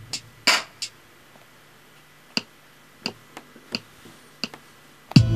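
Beatmaker 2 drum pads on an iPad tapped by hand: about nine short, bright percussive sample hits in an irregular rhythm. Just before the end a loud sampled music loop with a bass line starts abruptly.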